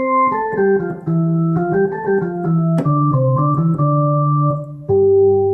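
Roland VR-09 synthesizer playing a Hammond-style organ patch built from its oscillators, layered with a second copy set an octave higher. It plays a run of sustained chords that change about every half second, then holds a lower chord near the end.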